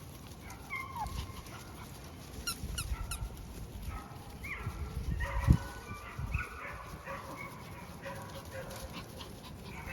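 Collie puppies whining and yipping softly in short, high cries, busiest about halfway through, with a single low thump about five and a half seconds in.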